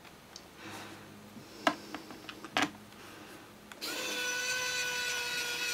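Small electric precision screwdriver's motor and gearing whirring steadily at one pitch as it drives a small screw into a laptop's metal bottom panel, starting about four seconds in. Before it, two light clicks.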